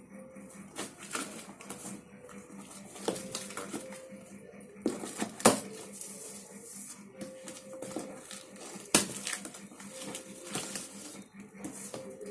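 Plastic wrapping being peeled and torn off a cardboard mattress box, with irregular crackling and rustling of plastic and cardboard and two sharp snaps, about five and nine seconds in.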